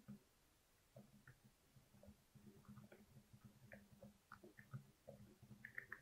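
Typing on a Glorious GMMK Pro keyboard with lubed and filmed Alpaca Silent linear switches and MT3 keycaps: soft, quiet, low key strikes in quick irregular runs, with a brief lull about half a second in.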